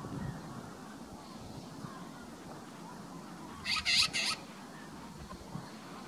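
Asir magpie giving three short, harsh calls in quick succession about four seconds in.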